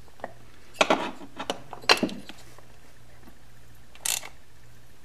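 Short metallic clinks and scrapes as the Honda CB750's finned oil filter housing is worked by hand against the engine's crankcase to line it up and start its thread, in a few brief clusters about one, two and four seconds in.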